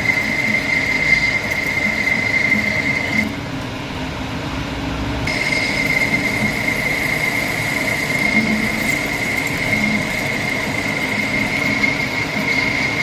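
Lathe running, with a steady high-pitched whine over a low hum; the whine drops out for about two seconds a few seconds in, then returns.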